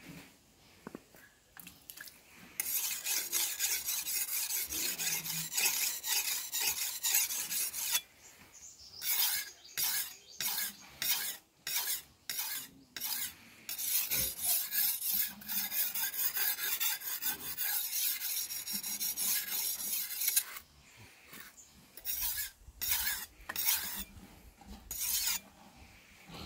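Steel cleaver blade being stroked on a whetstone: a rasping scrape. It comes in long runs of quick back-and-forth strokes, broken by stretches of separate strokes about two a second.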